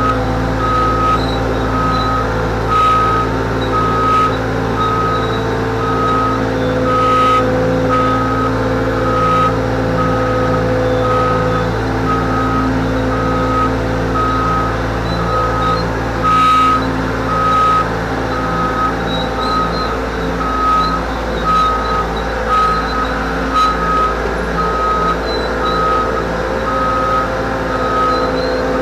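Cat 248B skid steer's diesel engine running with its backup alarm beeping in a steady, even series throughout as the machine reverses.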